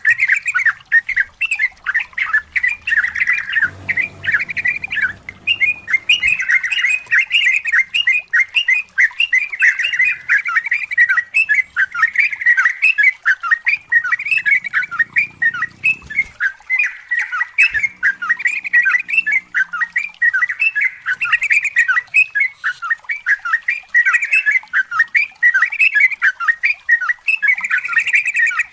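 Yellow-vented bulbul (trucukan) singing a long, nearly unbroken run of short, quick chattering notes.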